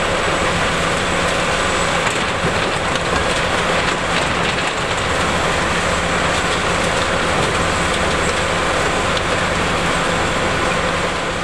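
GIPO R131C tracked mobile crusher running under load: a steady, loud mechanical din with a constant hum and a dense rattle of crushed rubble moving through the machine and off its discharge conveyor, fading out near the end.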